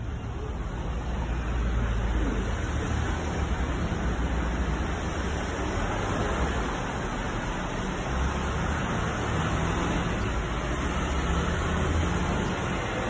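Steady city traffic noise from the street below: a continuous even hiss with a low rumble under it.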